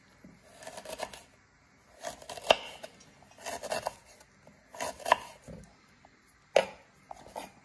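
Chef's knife slicing fresh ginger root on a wooden cutting board: about six separate strokes, each a short cut through the root ending in a tap of the blade on the board.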